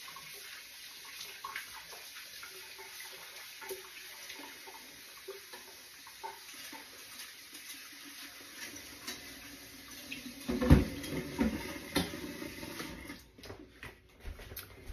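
Kitchen faucet running as a pot is rinsed out in the sink, with small clinks and a couple of louder knocks of the pot. The water shuts off near the end.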